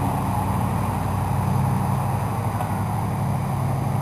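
A steady low engine-like hum, as of a motor idling, under a constant noisy outdoor hiss.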